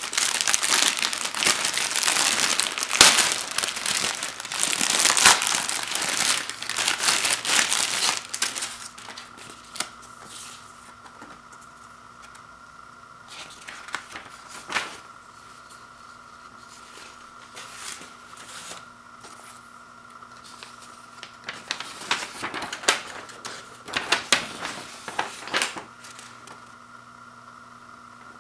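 A thin plastic bag crinkling and tearing as it is pulled open, dense and loud for about eight seconds. After that come softer, scattered rustles of a folded paper leaflet being handled and opened out, over a faint steady tone.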